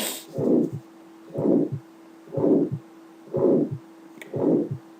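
Recorded heart auscultation of tetralogy of Fallot: a systolic murmur with each heartbeat, about one beat a second, produced by the pulmonary stenosis. A steady low hum runs under the beats.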